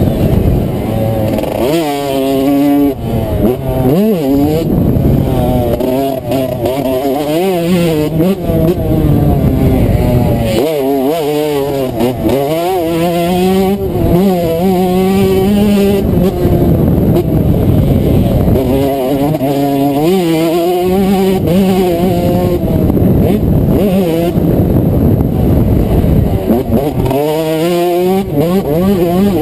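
Yamaha 125cc two-stroke motocross bike engine at race pace, revving hard with its pitch repeatedly climbing through the gears and dropping when the throttle is rolled off for jumps and corners.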